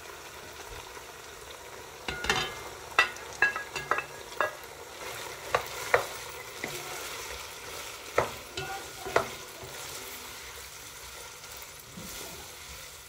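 Diced chicken sizzling steadily in hot oil in a nonstick pot, stirred with a wooden spoon through chopped onion and green chillies. From about two seconds in to about nine seconds in, the spoon gives clusters of sharp knocks and scrapes against the pot.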